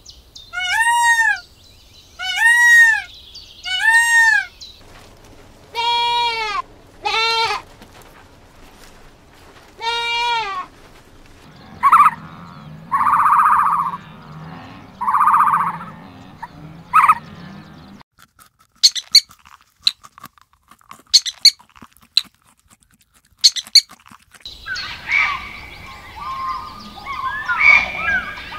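A run of different animal calls one after another: three loud, arching calls, then three lower calls, then two buzzing calls, a stretch of sharp clicks, and a jumble of chirping calls near the end.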